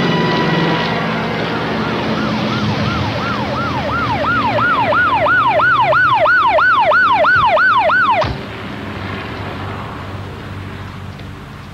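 Police car siren approaching, a fast rising-and-falling yelp of about three cycles a second that grows louder, then cuts off abruptly about eight seconds in.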